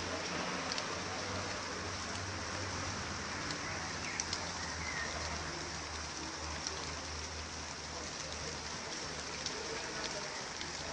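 Rain falling steadily, an even hiss with scattered sharp ticks of individual drops striking nearby surfaces.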